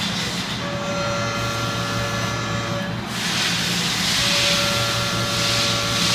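CNC machine high-speed machining 15-5 stainless steel: a steady mix of tones from the spindle over a hiss, which grows louder about halfway through.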